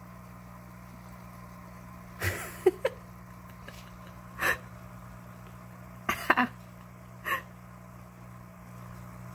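A person's short breathy sounds, like stifled chuckles or snorts, five or so at irregular intervals over a steady low hum.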